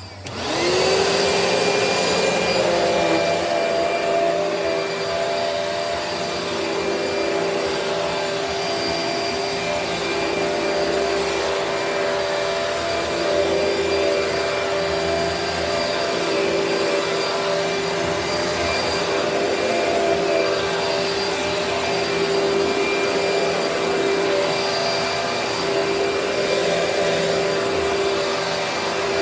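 Vacuum cleaner switched on, its motor spinning up to speed with a rising whine in the first second, then running steadily as the floor is vacuumed.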